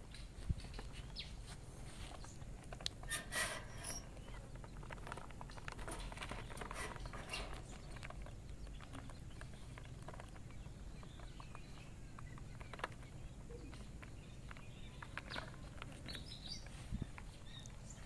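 Scattered rustling and soft clicks of quail chicks being chased and caught among the aviary litter, with a denser scuffle about three seconds in, and faint peeping from the chicks.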